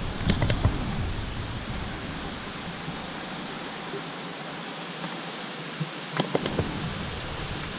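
Steady rushing noise of a waterfall. A low rumble fades out over the first few seconds, and a few short clicks come about half a second in and again near six seconds.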